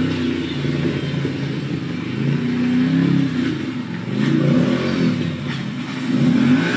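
A small vehicle's engine revving, its pitch rising and falling several times.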